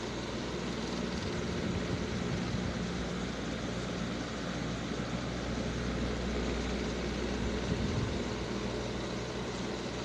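A steady low machine hum under an even rushing noise, with no break in it.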